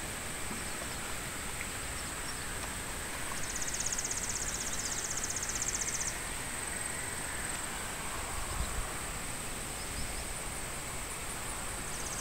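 Field insects calling: a steady high-pitched drone throughout, joined by a rapid, finely pulsed trill from about three seconds in to about six seconds in.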